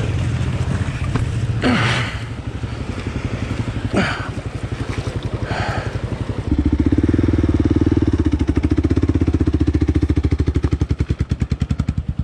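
A motorcycle engine running at idle with a steady throb, becoming louder and fuller about six and a half seconds in. There are short rushing noises about two and four seconds in.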